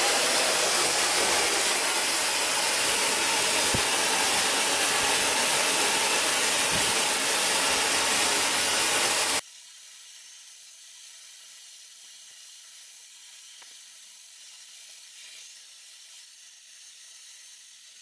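Roidmi Miro high-speed hair dryer blowing a loud, steady rush of air. About nine seconds in, the sound cuts off suddenly, leaving only a faint hiss.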